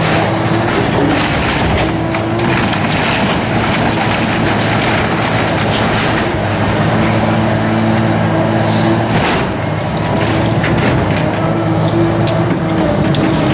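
Case tracked excavator's diesel engine running steadily under load, with wood cracking and splintering now and then as its bucket tears into the barn's timbers.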